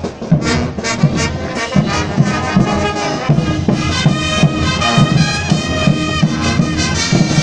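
Brass band playing a dance tune over a steady bass drum beat, the horns holding long chords from about four seconds in.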